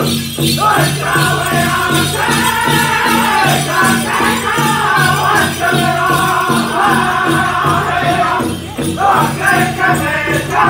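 Powwow drum group singing a song in high voices over a steady beat on the big drum. The singing breaks off briefly between phrases about eight and a half seconds in. The bells on the dancers' regalia jingle along with it.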